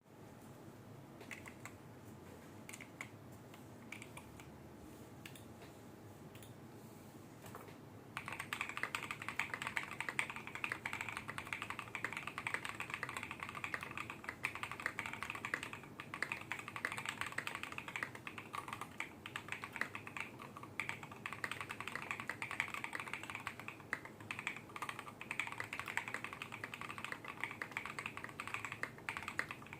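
Custom mechanical keyboard typing: lubed Tecsee Carrot linear switches on a polycarbonate plate in a Kbd67 Mkii case with KAT Alpha keycaps. Only a few scattered keystrokes at first, then from about eight seconds in a steady run of fast, continuous typing.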